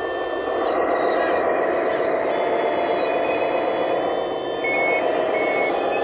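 Scale RC Komatsu wheel loader's sound module running a steady engine sound, with two short high reversing beeps near the end as the loader backs up.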